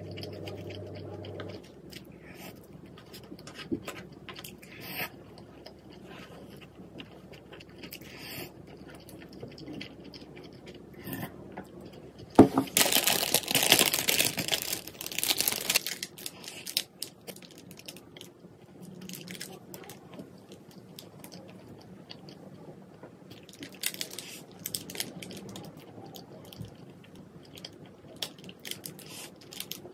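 Close-miked eating: crunching and chewing with small clicks of tableware or food handling, and a few seconds of loud rustling noise near the middle.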